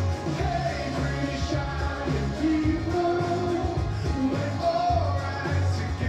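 Rock-pop song played from a vinyl record on a Royce Spectrum turntable through a Sansui A-510 amplifier and Castle Acoustics Richmond MK2 speakers. This is a stretch without lyrics, with a strong bass under a melody line.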